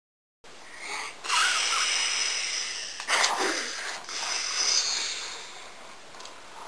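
A person's breathy, hissing mouth noises, with a short falling tone about three seconds in. The sound cuts in abruptly just under half a second in.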